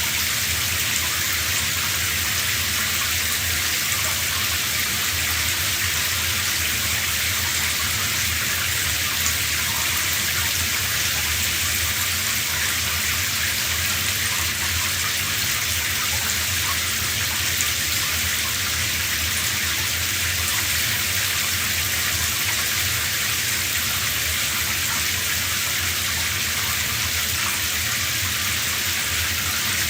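Running shower: a steady spray of water hissing without a break.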